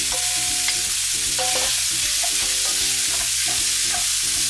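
Raw ground beef sizzling in hot oil in a pan as it is tipped in from a metal bowl and stirred with a wooden spoon, a steady frying hiss.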